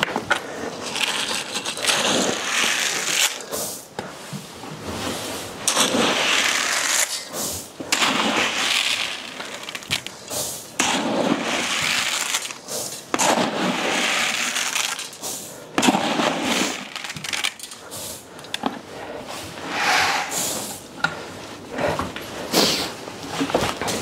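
Straw and feed rustling and crunching in repeated bursts about a second long, with some scraping, as a person works through a straw-bedded cowshed, stepping through the bedding and scooping feed from a bucket into the troughs.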